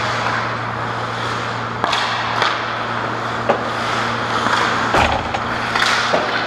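Ice hockey play around the goal: skates scraping on the ice over a steady low hum, with several sharp clacks of sticks and puck.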